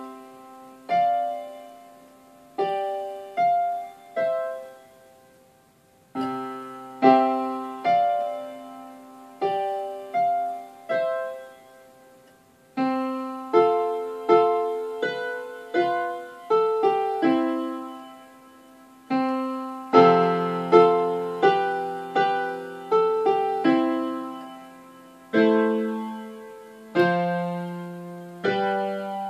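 Solo piano playing a slow, gentle piece in short phrases, each note or chord struck and left to fade, with brief near-pauses between phrases. About twenty seconds in the playing grows louder and fuller, with lower bass notes under the melody.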